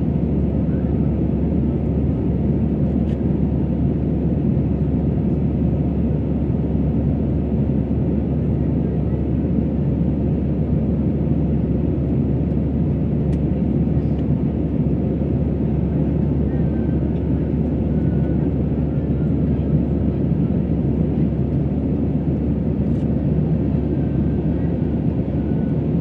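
Airbus A320 cabin noise in flight: a steady low rumble of the engines and rushing air, heard from inside the cabin.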